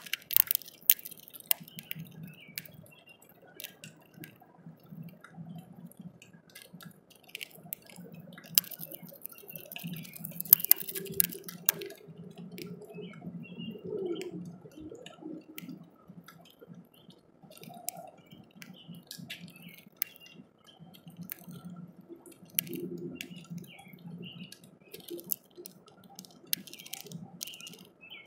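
Male house finch cracking seeds at a clear plastic window feeder, heard close up: irregular sharp clicks and taps of beak and seed husks, with a denser run of crackling about nine to eleven seconds in, over rain dripping on the feeder.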